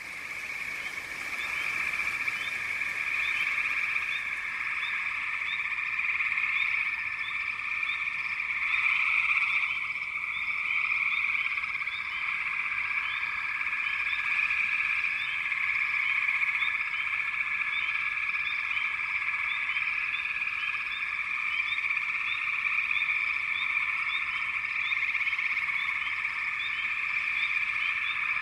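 Dense chorus of many frogs calling at once: a steady, unbroken wall of calls, with quick short chirps repeating over it. It fades in at the start.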